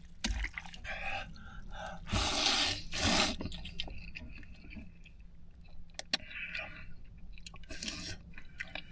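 A man eating noodles, chewing, with two louder noisy bursts about two and three seconds in.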